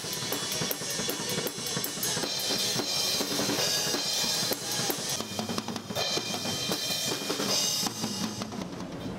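Acoustic drum kit played live by a street drummer: a fast, steady beat of cymbal or hi-hat strokes over snare and bass drum hits. The beat drops away near the end.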